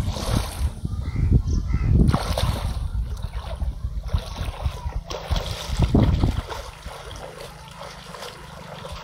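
Water splashing and sloshing as people wade through a shallow muddy pond, with wind rumbling on the microphone that eases off about two-thirds of the way through.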